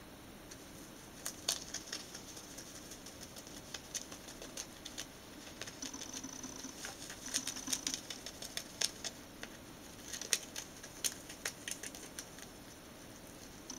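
Rabbit chewing and tearing a sheet of glossy paper: irregular crisp crackles and clicks of the paper being bitten and pulled, starting about a second in.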